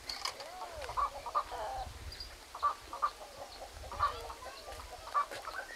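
Chickens clucking, with short scattered calls and one brief rising-and-falling note about half a second in, over a low rumble.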